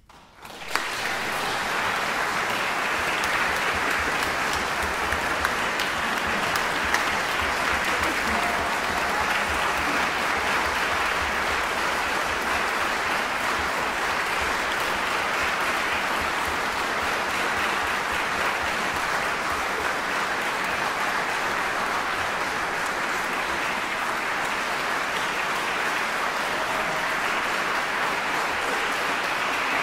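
Concert audience applauding, starting suddenly about half a second in and then keeping up steadily.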